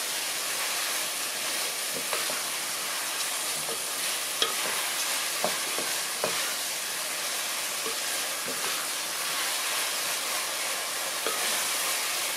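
Soaked glutinous rice and ground beef sizzling in a pot as they are stirred with a wooden spatula: a steady frying hiss, with a few short scrapes and taps of the spatula against the pot. This is the rice being toasted dry in the pot before the water goes in.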